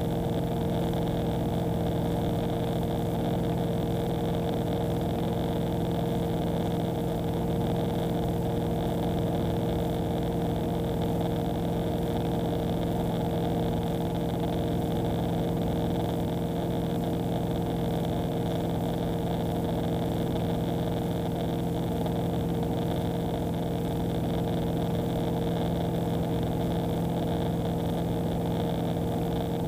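Tecnam P2010 single-engine light aircraft in flight, heard from inside the cockpit: the piston engine and propeller drone steadily with a constant hum under an even rush of noise, unchanging in pitch and level.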